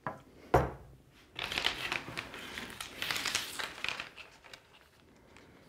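A light knock, then iron-on melamine edge-banding tape rustling and crinkling as it is pulled off its roll and stretched along a board's edge, fading out near the end.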